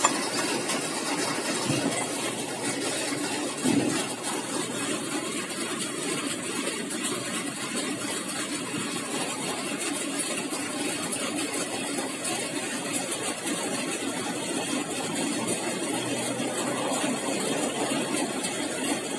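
A steady engine hum, with two faint knocks in the first four seconds.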